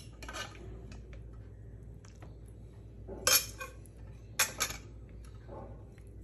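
Metal ladle clinking against a stainless steel pot and a metal plate while curry is served: a few short clinks, the loudest about three seconds in, then a quick pair.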